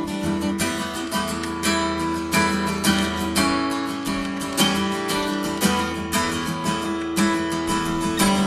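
Acoustic guitar strummed and picked in an instrumental passage of a song, with no voice.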